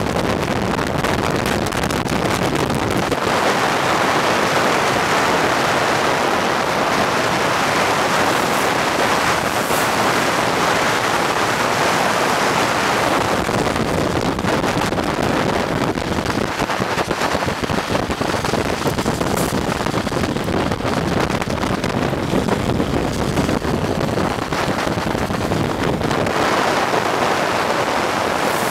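Steady rush of wind over the microphone at downhill speed, mixed with the roar of wheels rolling on asphalt. The tone of the rush shifts a few times, about three seconds in, around the middle and near the end.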